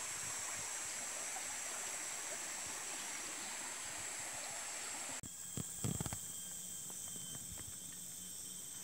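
Shallow rocky stream running, a steady rushing hiss, with a high insect buzz over it. About five seconds in it cuts off to a quieter background of steady high-pitched insect whine, with a few low knocks just after the change.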